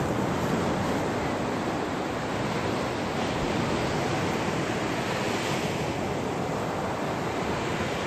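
Sea surf breaking and washing up a sandy beach: a steady rushing noise that swells once about six seconds in as a wave comes in.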